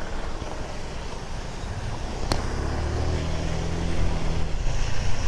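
Honda Click 125 scooter's single-cylinder engine running while riding, with wind rushing over the microphone; the engine tone steadies and grows a little louder from about three seconds in. A single short click a little past two seconds in.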